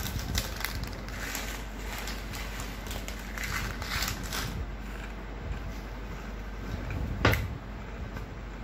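Quiet room noise with a steady low hum and faint rustling, broken by a single sharp knock about seven seconds in.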